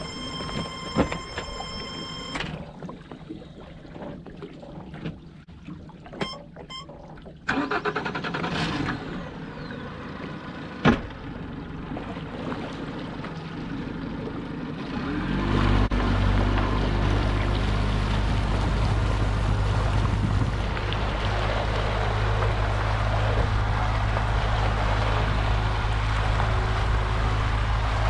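Honda outboard's warning alarm sounding a steady high beep that cuts off about two seconds in, then some clicks and knocks. About fifteen seconds in, the outboard is restarted after the alarm fault and runs steadily.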